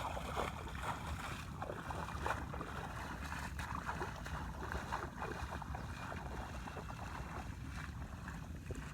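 Irregular splashing and sloshing in shallow water, with a steady low rumble of wind on the microphone.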